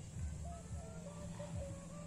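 Birds calling outdoors: short whistled notes, one after another, over a low steady rumble.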